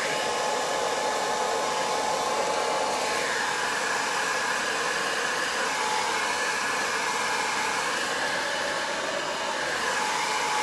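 Handheld hair dryer running steadily on hot air, used to heat-shrink cellophane gift-basket wrap: an even rushing blow with a faint steady whine.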